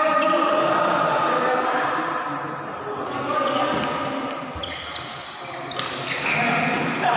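Badminton rackets striking a shuttlecock during a doubles rally, several sharp hits in the second half, in a large hall. Voices talk in the background during the first few seconds.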